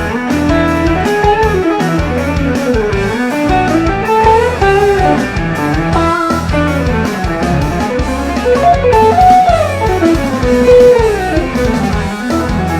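A custom G&L-based electric guitar plays a melodic instrumental line with gliding note bends and slides, over a steady low bass part.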